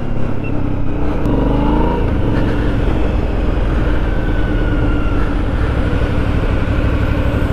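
Motorcycle engine running under way, with wind and road noise on the rider's helmet microphone; the engine note falls between about one and two seconds in, then holds steady.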